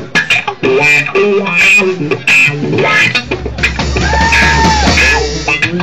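Live blues-rock band playing loudly: electric guitar with drums hitting hard and steadily. In the second half a long held note bends up and back down over a low rumbling bass layer.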